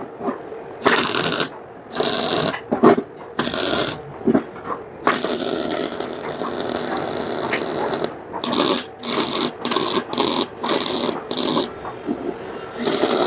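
Workshop mechanical noise: irregular short bursts of metallic rattling and scraping from tools and parts being worked on, with a steadier stretch of noise about five seconds in.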